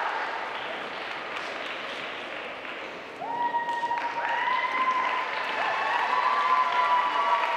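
Audience applauding, with high, long-held cheers and yells rising over the clapping from about three seconds in.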